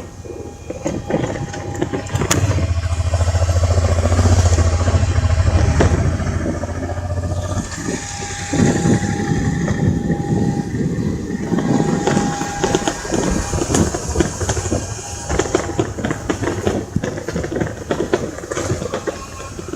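A vehicle on the move: the engine runs with a strong low hum for a few seconds, then gives way to rough road noise with many small knocks and rattles.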